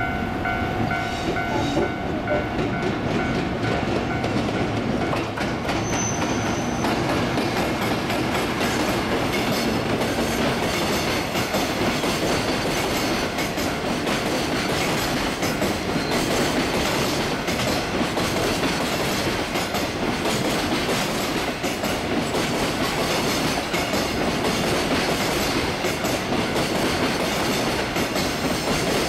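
Freight train passing close by at a level crossing, its wagon wheels clattering over the rail joints in a steady, continuous run.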